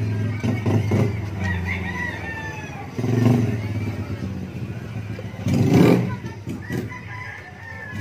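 A rooster crowing, over a steady low hum and faint voices.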